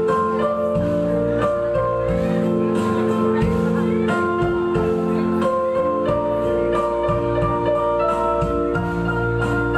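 Instrumental music with sustained notes that change every second or so, in the manner of a slow song arrangement.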